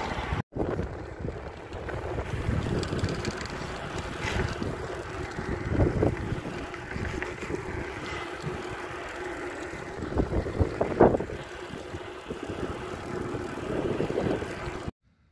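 Wind rushing over a smartphone's microphone while riding a bicycle, with the rumble of the tyres on the road and a few sharper knocks, the loudest about eleven seconds in. The sound drops out briefly about half a second in and again just before the end.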